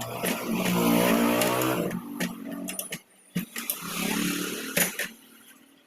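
Small single-cylinder petrol engine of a Honda GX200 generator running briefly twice, each run lasting about two seconds and dying away, with a quiet gap between them.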